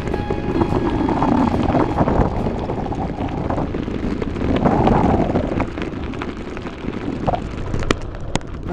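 Wind buffeting a handlebar-mounted action camera's microphone on a bicycle riding a gravel track, mixed with the rumble and crunch of the tyres on loose gravel. Two sharp knocks come near the end.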